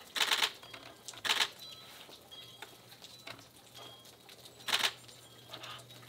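Nikon D850 camera shutter firing in short bursts of rapid clicks: three main bursts, at the start, about a second in and near the end, with a few fainter clicks between.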